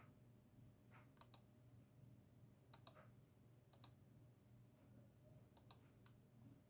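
Roco 79047 model locomotive running: a faint steady motor hum with sharp clicks, mostly in close pairs, every second or two.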